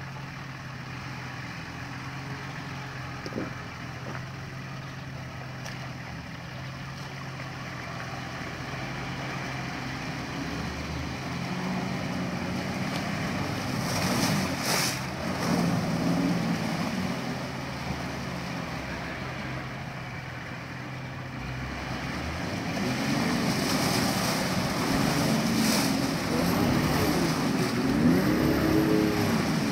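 A 4x4's engine running low and steady, then revving harder as the vehicle drives through a muddy water hole. Water splashes about halfway through and again near the end, and the revs rise and fall repeatedly over the last few seconds as it pushes through the mud.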